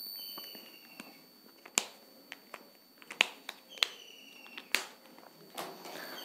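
Scattered sharp clicks and taps of a few whiteboard markers being handled and knocked together in the hands, with a soft rustle of movement near the end.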